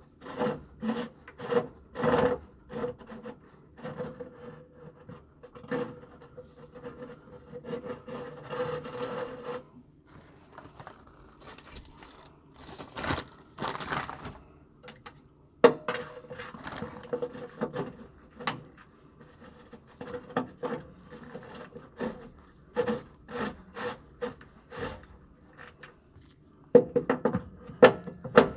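Irregular handling noise: many short knocks and clicks with scraping and rubbing, as hard objects are handled and worked, with a longer noisy stretch about halfway through.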